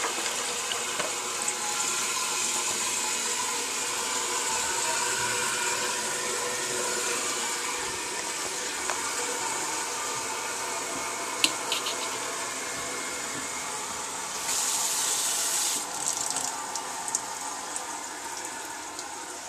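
Crane Plumbing toilet refilling just after a flush: a steady hiss of running water that slowly fades, with a louder rush lasting about a second and a half about three-quarters of the way through.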